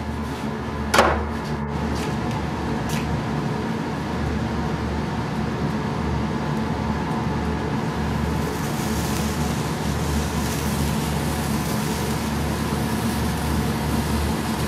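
Steady low hum, with a sharp click about a second in and a few faint ticks after it. From about eight seconds a lit sparkler fizzes with a steady high hiss.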